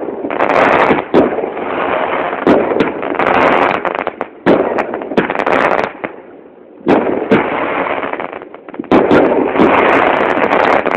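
Consumer fireworks battery (Maxsem 'Surprise') firing rapid volleys of shots with sharp bangs, easing off briefly twice before picking up again.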